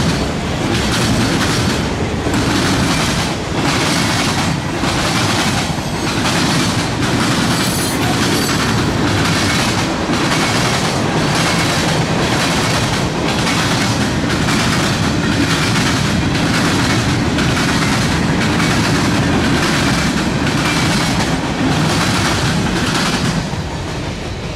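Freight cars of a mixed freight train rolling past, their steel wheels clacking over the track in a steady rhythm. The sound drops off near the end as the last car passes.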